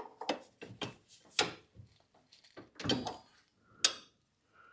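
A steel wrench clinking and knocking against a hydraulic fitting and the tractor frame as it is repositioned in a cramped space. It is turning the fitting of a rear-cylinder lockout valve into position. About eight short, irregular clinks, the sharpest a little under four seconds in.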